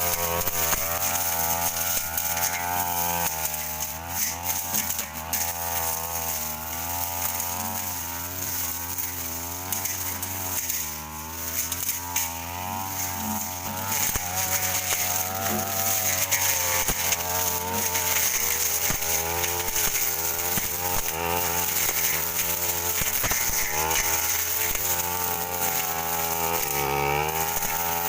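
Stihl brush cutter engine running hard while its blade cuts through thick undergrowth around an oil palm. The engine note wavers up and down continually as the load on the blade changes.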